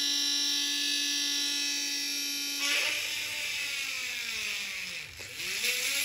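Small DC motor of a homemade mini drill whining at full speed, then labouring as the bit bores into a plastic board: about three seconds in the pitch drops and wavers under load, sinking lowest around five seconds before picking up again near the end.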